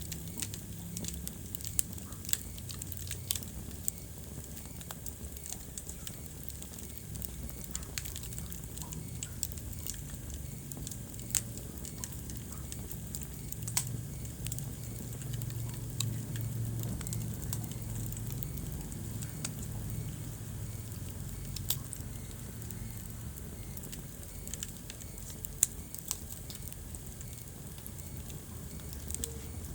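Wood fire burning in a fireplace: a low steady rumble of flames with irregular sharp crackles and pops, a few louder snaps scattered through.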